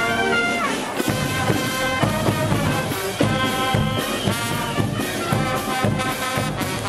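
Live brass band playing: trumpets, trombones, saxophone and a low brass horn over a steady drum-and-cymbal beat of about two hits a second, with the horns sliding down in pitch about half a second in.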